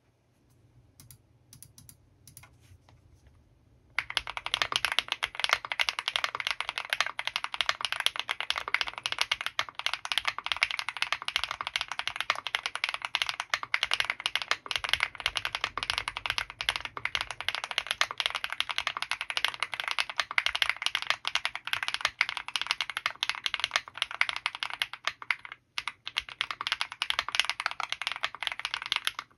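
Fast, continuous typing on an Owlab Mr.Suit mechanical keyboard with KTT FBB F1 switches lubed with Krytox 205g0, GMK doubleshot ABS keycaps and EPT plate foam. A few faint clicks come first, then dense typing starts about four seconds in and runs on, with a brief pause near the end.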